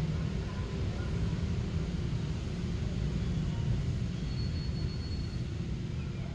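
Steady low rumble of outdoor background noise, with no clear pitch.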